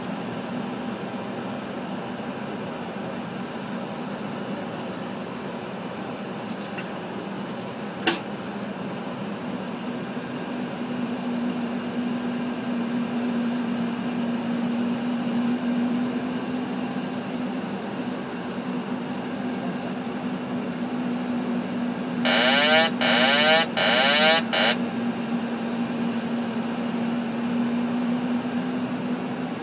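Steady airflow and air-conditioning noise inside a Boeing 737-800 cockpit on final approach, with a low hum and a single sharp click about eight seconds in. Near the end a loud warbling alert sounds for about two and a half seconds in four short pulses, typical of the 737's autopilot-disconnect warning as the pilot takes over for a manual landing.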